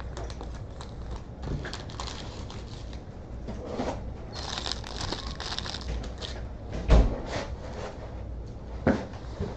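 Crinkling and rustling of trading-card pack wrappers and cards being handled, loudest for a couple of seconds in the middle, with two sharp knocks later on.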